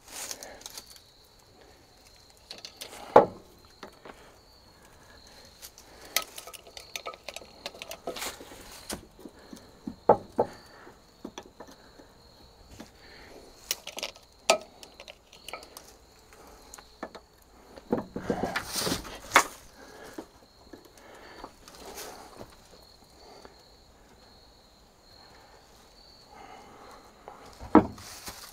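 Scattered metal clinks and sharp knocks of hand tools working on rusted cab-jack cylinder pins, the loudest about three seconds in and near the end, over a steady high insect trill.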